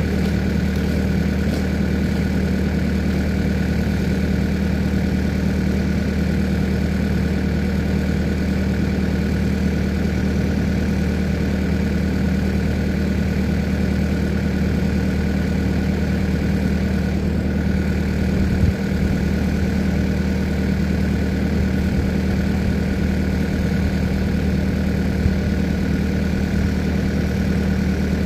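New Holland C232 compact track loader's diesel engine running steadily at a constant throttle, with one brief clunk about two-thirds of the way through.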